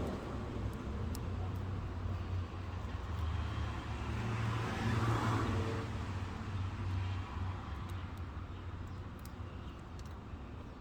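Low, steady motor-vehicle rumble that swells about halfway through and then fades, with a few faint small clicks.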